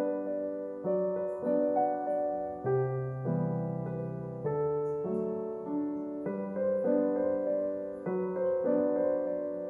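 Background piano music: a soft, gentle piano piece with chords that change about every half-second to second.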